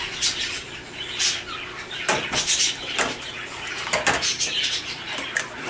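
Clicking and clattering of a flat-panel TV's plastic speaker unit and metal parts being handled, with sharper knocks about two, three and four seconds in.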